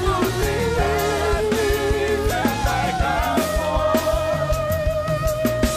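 Live band music: electronic keyboard over a drum kit with a regular beat. A lead melody line holds one long note through the second half.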